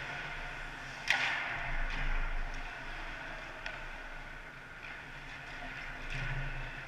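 Ice hockey play in an indoor arena: a sharp crack of stick or puck about a second in that echoes through the rink, then a few fainter clacks over the steady hum of the arena.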